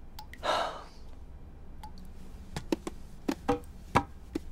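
A short breathy sigh, then footsteps on a hard floor: a few irregular clicks and knocks, the loudest about four seconds in, over a low steady room hum.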